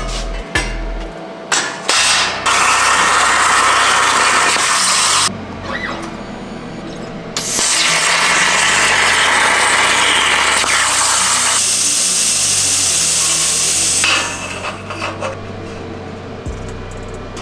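CNC plasma torch cutting sheet steel, its arc and air jet making a loud, even hiss. It runs in two long cuts, the first starting about two seconds in and lasting about three seconds, the second from about seven seconds to about fourteen seconds, with a few short bursts at the start.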